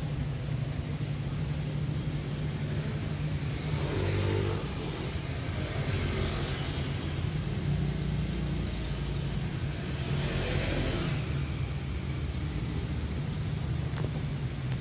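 Vehicle engine running with a steady low hum; the sound swells twice, about four and ten seconds in.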